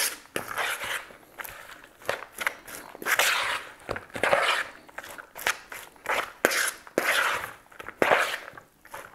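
Shredded cabbage coleslaw being stirred and folded in a large mixing bowl, a utensil working through it in a series of irregular short strokes.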